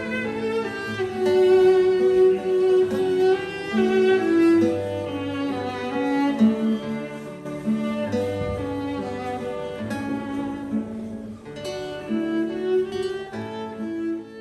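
Background music: a bowed string instrument playing a slow melody over plucked classical guitar, fading out at the end.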